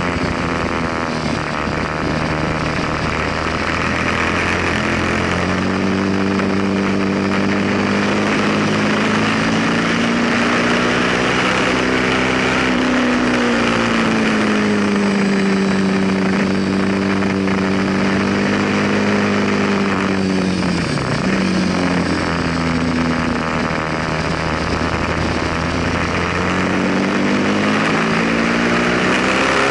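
Ducati superbike's V-twin engine under hard riding, its pitch stepping through gear changes, climbing as it accelerates and dipping sharply once as it slows for a corner before climbing again, over heavy wind rush at speed.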